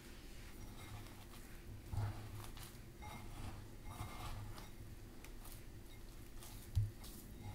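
A hand squeezing and kneading crumbly corn-flour dough in a bowl, making faint, irregular squishing and crumbling. There is a dull low bump about two seconds in and a louder one near the end.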